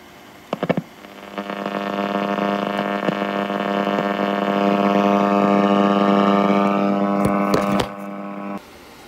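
Schaub Amigo III radio putting out a steady buzzing tone with many overtones that swells over the first few seconds, holds, and cuts off abruptly near the end. A few sharp clicks come just before the tone starts and again shortly before it stops.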